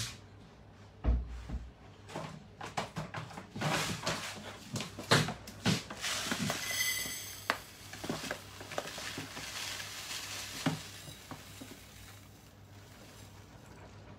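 Kitchen handling sounds of cooking jollof rice: a run of knocks and clatters of pots and utensils, with a low thump about a second in and a brief high metallic ring around the middle.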